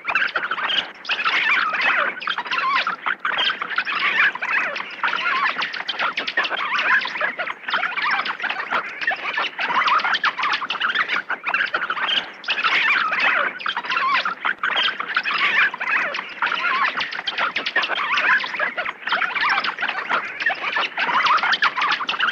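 Birds chirping and chattering, many short calls overlapping without a break.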